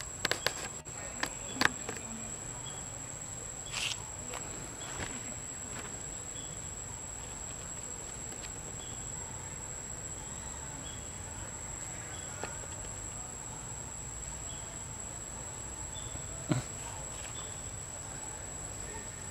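Steady high-pitched insect drone in the forest. A few sharp clicks and knocks break in, in a cluster in the first two seconds and once more about sixteen seconds in.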